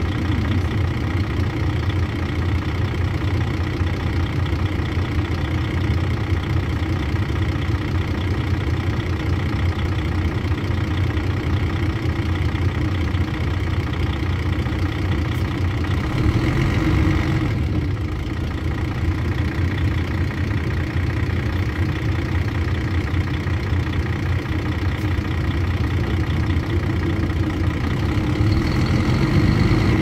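Mercedes-Benz O-400RSD coach's diesel engine idling steadily. About halfway through it briefly gets louder and brighter, then drops back suddenly, and it rises a little again near the end.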